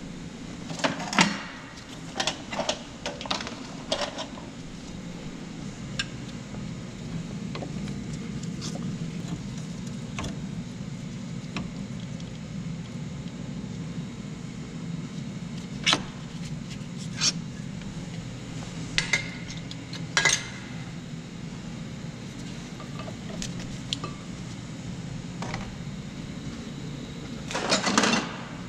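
Metal hand tools clinking and rattling as they are picked from a tool cart and handled. There is a cluster of sharp clinks in the first few seconds, scattered ones midway, and a louder rattle near the end, all over a steady low hum.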